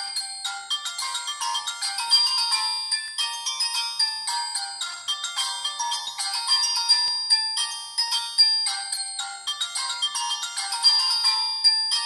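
Polyphonic ringtone melody playing through a Siemens SF65 flip phone's small speaker: a quick run of thin, synthesized notes with no bass.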